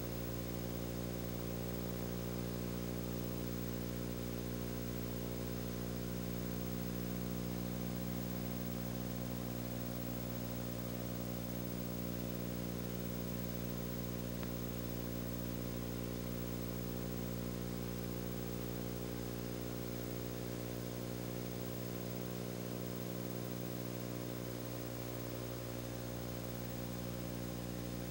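A steady electrical hum and buzz with an even hiss, unchanging throughout: the background noise of a silent home-movie transfer.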